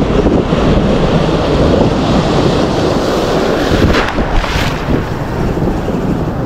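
Sea surf rushing and washing around a wading angler, with wind buffeting the microphone: a loud, steady rush. About four seconds in, a wave splashes up against the camera.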